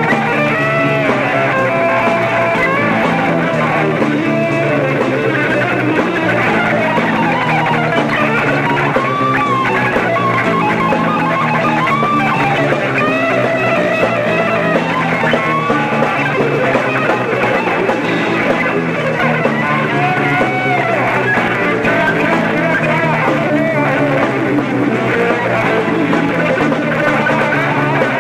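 A live rock band plays an instrumental passage: an electric guitar lead with bending, gliding notes over bass guitar and drums with cymbals. The sound is dull, with little treble, as on an old television recording.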